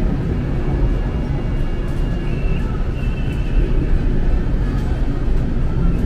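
Hong Kong Peak Tram car running with a steady low rumble, with a few faint high tones near the middle.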